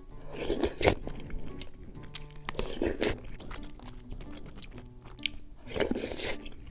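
A person chewing and biting food close to the microphone, with three louder bites about half a second, three seconds and six seconds in, over soft background music.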